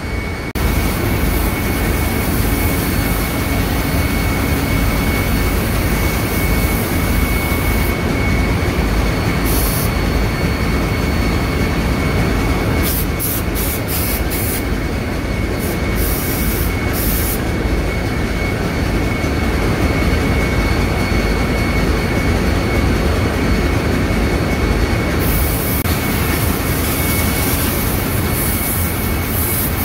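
Steady, loud machinery noise of a ship's engine room running, with a constant high whine over it. Several short hisses come through about a third to halfway in.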